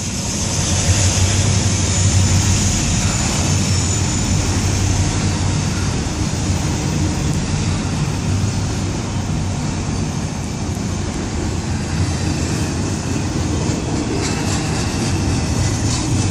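Double-stack intermodal freight train's well cars rolling past: a steady rumble of steel wheels on the rails, with a few faint clicks near the end.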